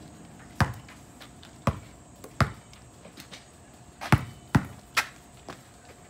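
A basketball bouncing on an asphalt driveway: about seven sharp single bounces, spread out at first, then a quick run of three about four seconds in as it is dribbled before a jump shot.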